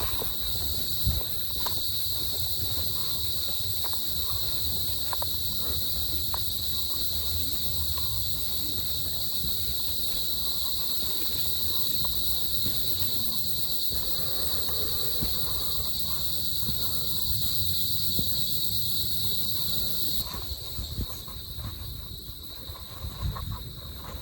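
Steady high-pitched insect drone that drops away suddenly about twenty seconds in, over a constant low rumble with a few faint knocks.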